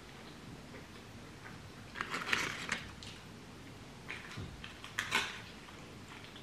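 Eating sounds: a few short bursts of crackly clicks, the loudest about two seconds in and smaller ones around four and five seconds in.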